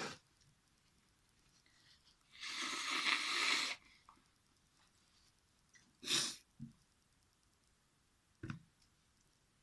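A person's breath and nose sounds while trying to make themselves sneeze: a loud noisy rush of air lasting over a second about two and a half seconds in, and short sharp breath sounds at the start, about six seconds in and near the end.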